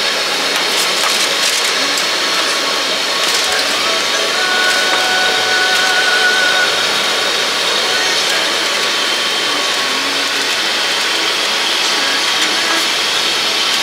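Steady, loud noise of a busy night-market food stall, with a constant rushing hiss and voices in the background.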